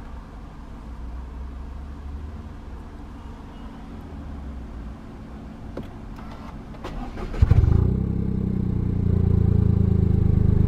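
Toyota GR Yaris's 1.6-litre turbocharged three-cylinder engine being push-button started: about seven seconds in, a brief starter crank, then the engine catches with a sudden jump in loudness and settles into a steady fast idle.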